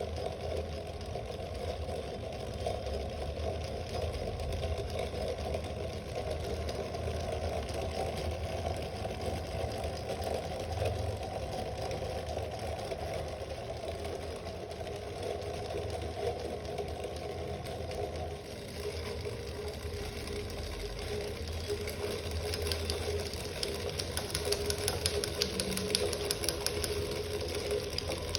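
3D printed Stirling engine model car running, its pistons, beam linkage and gear train making a steady fast mechanical clatter. The sound changes about two-thirds of the way in, and a rapid ticking grows louder near the end.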